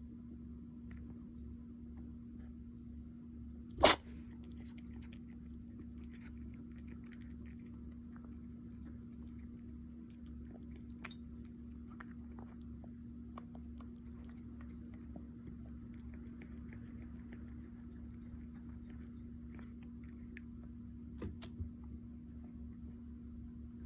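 An animal sneezing once, close to the microphone: a single short, sharp burst about four seconds in. A steady low hum runs underneath, with a few faint clicks later on.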